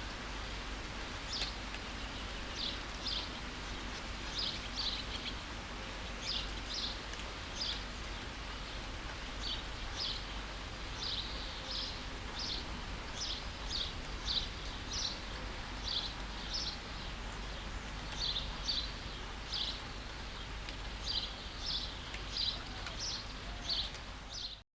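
Steady rain hiss with a bird chirping over it, short high chirps about one or two a second throughout. Everything cuts off suddenly at the very end.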